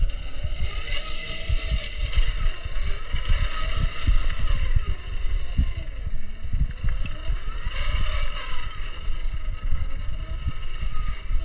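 Electric motor and gear whine of an RC4WD Trailfinder 2 scale crawler truck, rising and falling with the throttle as it crawls in low gear, under a heavy, uneven low rumble.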